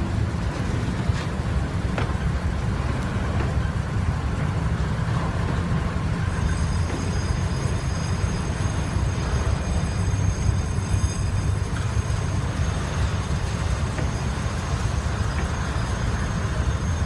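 Freight train container flatcars rolling slowly past on the rails, a steady low rumble of wheels and bogies with a few faint clicks. About six seconds in, a thin high-pitched ringing joins and holds.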